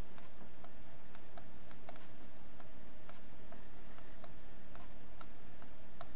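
Irregular light clicks and taps of a pen stylus on a writing tablet as words are handwritten, over a steady low electrical hum.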